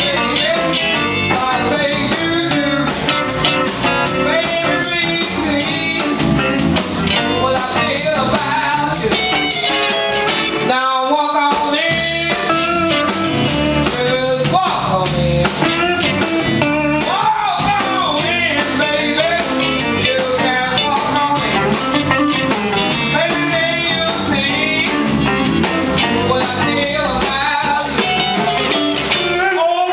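Live blues band playing: a woman singing over electric guitars, bass guitar and drums, with a brief break in the band about eleven seconds in.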